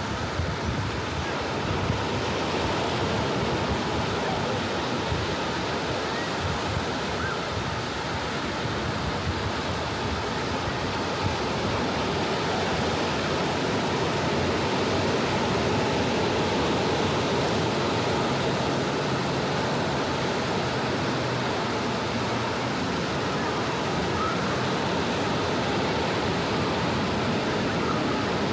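Small ocean waves washing onto a tropical beach, a steady wash of surf.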